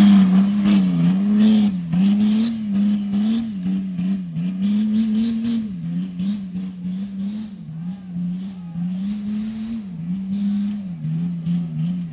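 Off-road 4x4 engine under load, its pitch rising and falling over and over as the throttle is worked.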